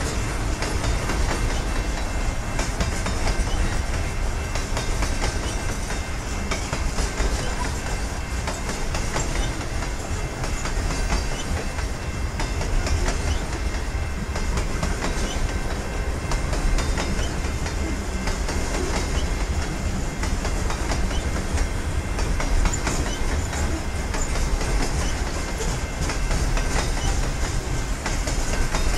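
Canadian National freight train's open-top hopper cars rolling past: a steady low rumble of steel wheels on rail with an irregular clatter of wheels over the rail joints.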